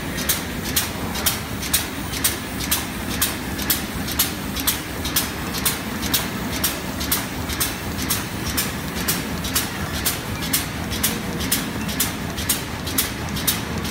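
Automatic stand-up zipper bag making machine running at high speed: a sharp click about twice a second over a steady mechanical hum, one stroke per bag at about 124 bags a minute.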